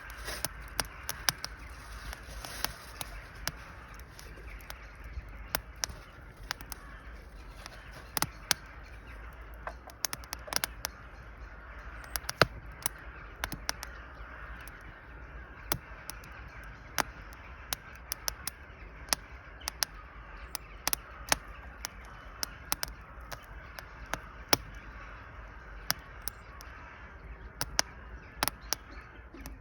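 Wood fire burning in a fireplace: irregular sharp crackles and pops over a steady hiss.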